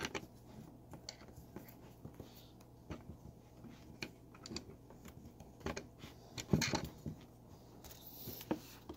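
Light clicks and rubbing as fingers work a rubber toothed timing belt onto an aluminium pulley on a metal bracket, with a louder cluster of handling noises about six and a half seconds in.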